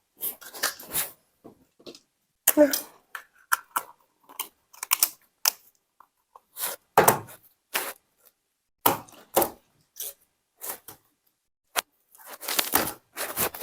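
Jelly slime being handled and shaped: irregular short sticky crackles and clicks, often a couple a second, with quiet gaps between.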